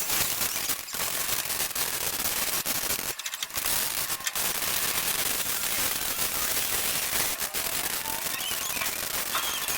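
Welding arc crackling and spitting on the Vespa's sheet-steel body, broken by a few short pauses where the arc stops, about a second in, around three seconds in and again past seven seconds.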